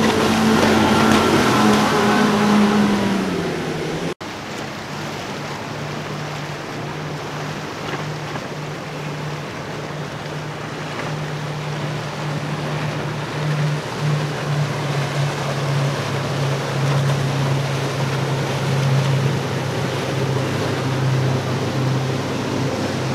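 Outboard-powered boat passing at speed, its engine tone dropping in pitch as it goes by, then after a sudden cut another outboard boat running steadily with water rushing and splashing off the hull.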